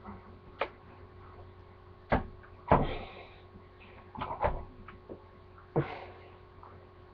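A series of separate sharp knocks and clunks at uneven spacing, the loudest about two and three seconds in, over a low steady hum.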